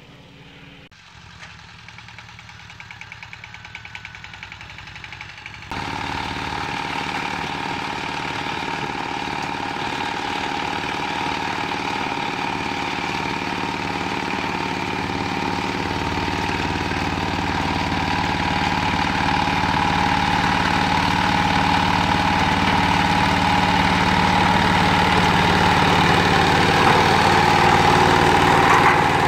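Zubr 15 hp mini tractor's engine running steadily under load, driving a rear rotary tiller through the soil. Faint pulsing at first, then it comes in loud about six seconds in and grows louder as the tractor comes closer.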